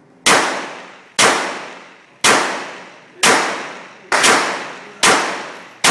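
Glock 34 pistol fired in slow, steady succession: seven sharp shots about one a second, each trailing off in a long echo.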